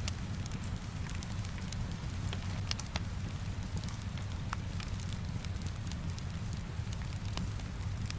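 Rain and fireplace ambience: a steady low rumble and soft rain hiss, with scattered light crackles and ticks.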